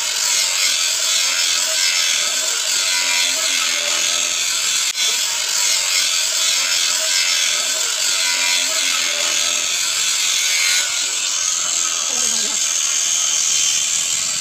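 Handheld angle grinder with an abrasive cut-off disc cutting through a steel pipe: a steady, loud, high-pitched grinding that holds throughout.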